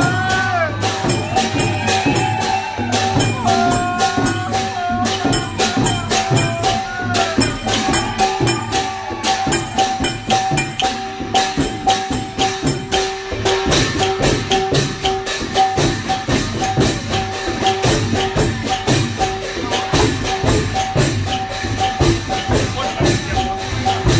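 Lively processional music: rapid, even percussion strikes of shaker- or cymbal-like instruments under a steady held note, with a gliding melody line over it in the first part.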